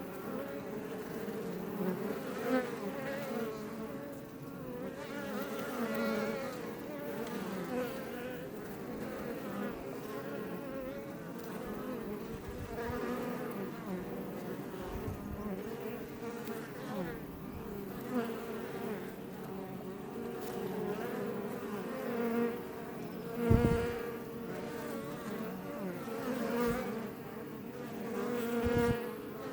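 Iberian honey bees buzzing in a steady, dense drone at a Langstroth hive, heard up close. Individual bees swell louder as they fly past. There are a couple of brief low thumps in the last third.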